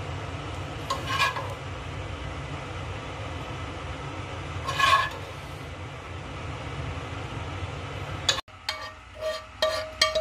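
A metal spoon clinks and scrapes against a ceramic plate twice while meat sauce is spooned over tofu, over a steady low hum. About eight seconds in, the sound cuts to background music with a steady beat.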